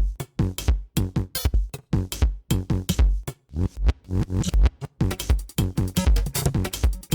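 Electronic background music with a steady drum-machine beat and heavy kick drum.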